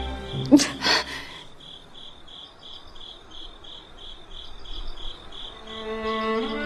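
Crickets chirping in a steady rhythm, about three to four chirps a second. Two short sharp sounds come about a second in, and soft bowed strings begin near the end.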